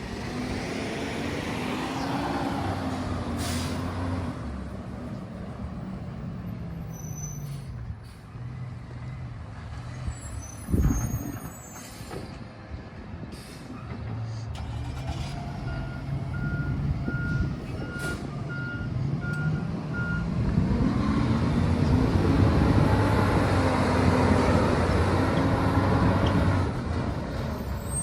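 Garbage truck collecting green waste: its diesel engine revs up and down twice, with short air-brake hisses, a heavy knock about eleven seconds in, and a run of short beeps, about two a second, between about 16 and 20 seconds. The engine is loudest near the end.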